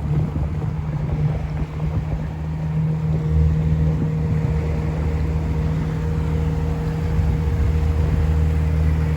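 Small fishing boat's engine running steadily under way, a constant low hum and rumble that grows a little fuller about three seconds in.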